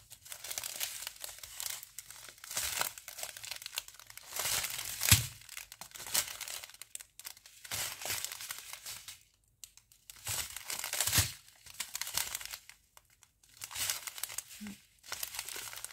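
Strip of small plastic sachets filled with round diamond-painting drills crinkling as it is handled and turned over, in irregular rustling bursts with short pauses.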